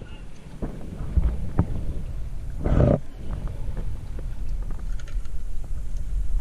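Wind buffeting an action camera's microphone, a loud low rumble that surges in gusts, with a stronger gust just before the midpoint and a few light knocks.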